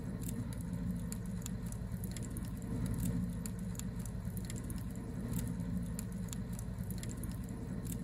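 A steady low rumble with scattered faint clicks and ticks throughout.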